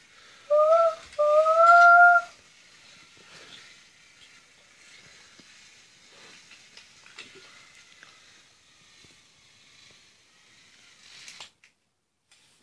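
Two train-whistle toots, a short one and then a longer one, each rising slightly in pitch, about half a second in. After them come only faint clicks and rattles of the wooden toy train and its track being handled.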